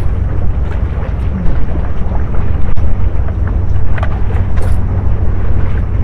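Wind buffeting the microphone: a loud, steady low rumble, with a few faint short clicks.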